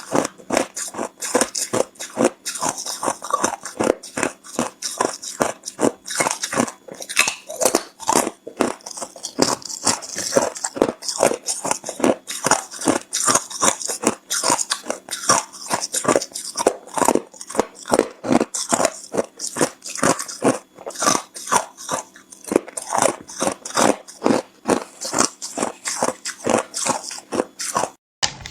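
Hard clear ice being bitten and chewed close up: a continuous run of sharp crunches, several a second.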